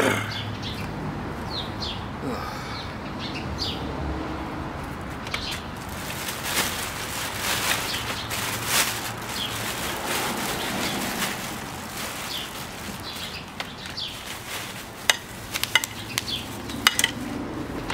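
Clear plastic wrapping crinkling and rustling as it is handled and pulled off the parts of a rollator walker, with a few sharp clicks near the end. Birds chirp in the background.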